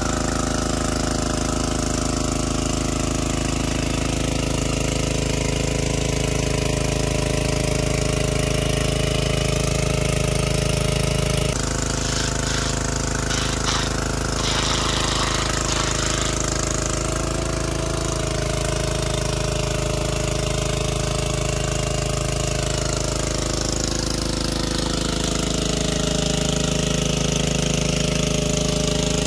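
Engine-driven water pump running steadily, pumping out the puddle; its note shifts slightly about eleven seconds in.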